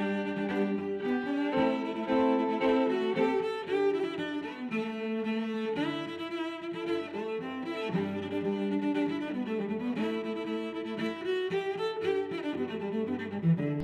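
Instrumental music with bowed strings, cello and violin, playing sustained melodic notes.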